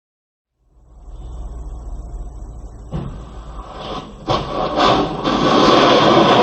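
Silence, then a vehicle's rumble starts about a second in, with a few sharp knocks between three and five seconds in and a louder rushing noise building after them.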